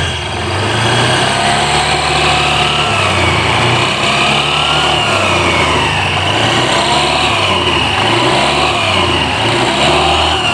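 Honda Scoopy scooter's single-cylinder engine and CVT drive, running with the CVT cover removed and revved up and down several times. No growling ('ngorok') is heard, which points to the cover side as the source of the growl.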